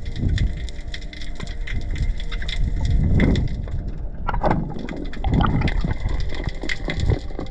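Underwater sound on a rocky reef: a dense, continuous crackle of tiny clicks, with several low whooshing surges of moving water and bubbles from a swimming diver.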